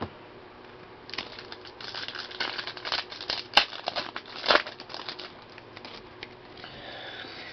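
Plastic wrapper of a trading card pack crinkling and tearing as the pack is opened and handled. The crinkling comes in irregular bursts, with a couple of sharper crackles about three and four and a half seconds in.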